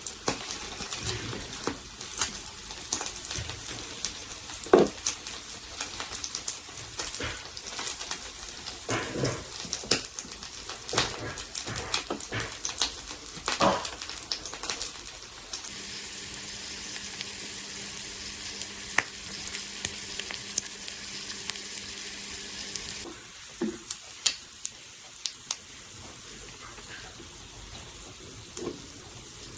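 Food pan-frying with a steady sizzle and crackle, broken by scattered sharp clicks. From about halfway in, a steady hum joins for some seven seconds and then stops.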